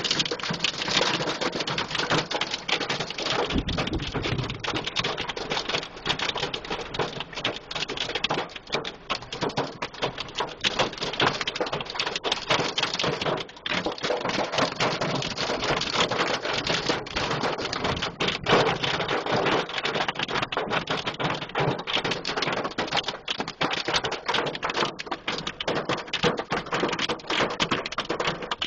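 Hail and heavy rain hitting a car's roof and windshield, heard from inside the car as a dense, steady clatter of small hits.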